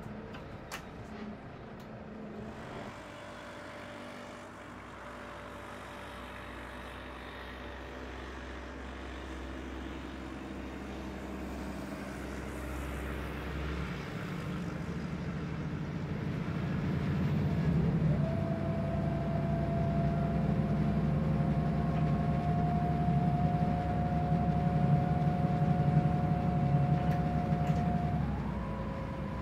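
City bus heard from inside the cabin: the engine runs low and steady at first, then grows louder about halfway through as the bus picks up speed. A steady drivetrain whine comes in and steps up in pitch near the end.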